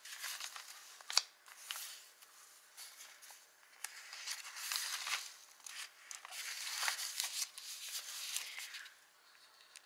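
Paper pages of a handmade junk journal being turned and handled, with dry rustling and a few sharp clicks, the sharpest about a second in.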